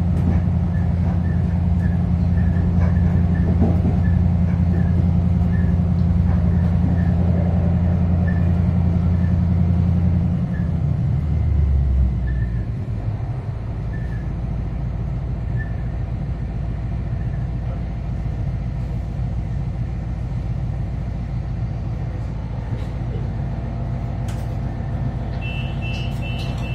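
Cabin sound of a 3000-class diesel-electric railcar: the diesel engine drones steadily under power, then eases off about eleven seconds in as the railcar coasts and slows into a station. Near the end a rapid series of high beeps sounds, the door warning as the railcar stands at the platform.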